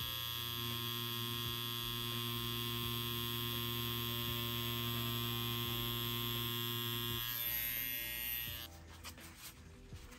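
Hummingbird Bronc V1 wireless rotary tattoo pen with its Maxon motor running steadily while lining into silicone practice skin, a constant buzzing hum. It stops near the end, leaving faint rustling.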